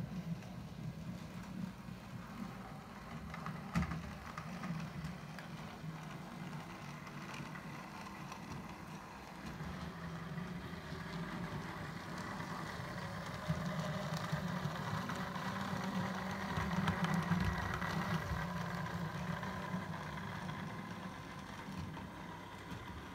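Bachmann OO gauge Class 47 model locomotive running along the layout, a steady diesel-like hum and drone that grows louder as it passes close by, loudest in the second half. There are a couple of sharp clicks, one about four seconds in.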